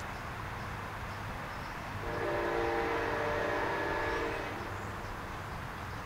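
Siemens Charger locomotive's air horn sounding one long blast of several notes at once, starting about two seconds in and lasting about two and a half seconds, over a steady low rumble.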